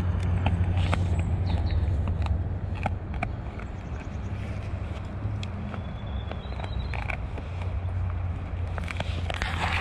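Dog gnawing on a dried cow ear: scattered crunches and crackles, busier near the start and again near the end, over a steady low rumble.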